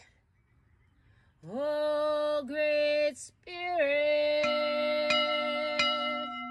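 A woman singing long, wordless vowel notes in slow phrases, starting after a pause of about a second and a half, with a short breath between phrases. About halfway through, a second steady held tone joins under her voice and carries on, with a few faint clicks.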